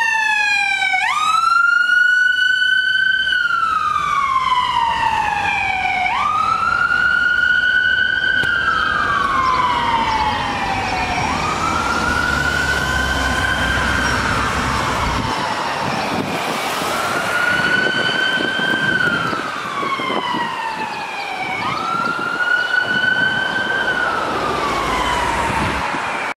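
Fire department utility pickup's electronic siren on a slow wail: each cycle rises quickly, holds, then falls away slowly, repeating about every five seconds.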